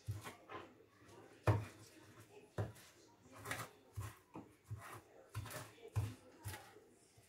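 Chef's knife chopping fresh parsley and basil on a plastic cutting board: a dozen or so unevenly spaced knocks of the blade on the board.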